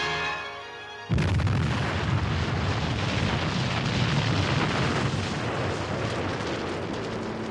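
A sudden explosion about a second in from an oil-prospecting blast, then a dense rushing roar as a tall plume of earth and water is thrown up, slowly fading. Music fades out just before the blast.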